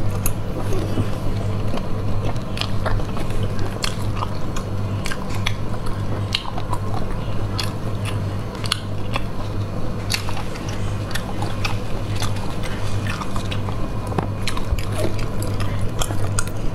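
Close-up wet chewing, smacking and biting of stewed snails eaten by hand, with many short sharp mouth clicks. A steady low hum runs underneath.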